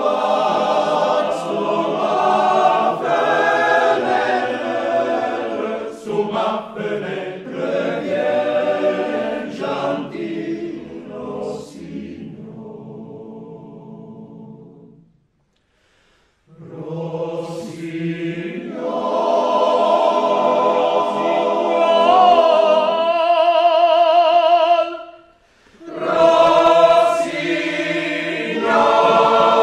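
Alpine male-voice choir singing unaccompanied. The piece dies away softly to silence about halfway through. The choir then starts again, swelling to a held, wavering chord, breaking off briefly and going on singing near the end.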